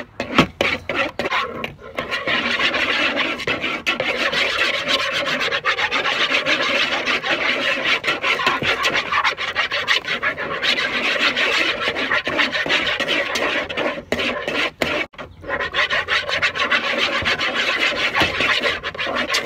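A spoon stirring and scraping around a plastic mixing bowl of glue-and-paint slime mixture, a continuous rasping scrape with a short break about three-quarters of the way through.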